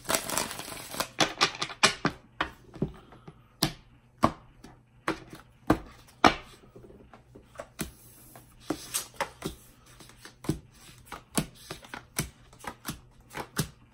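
Tarot cards being handled after a shuffle: the deck tapped and cards flicked and set down on a table. The result is a run of irregular sharp taps and clicks, with a short card-shuffling rustle near the start and another about six seconds in.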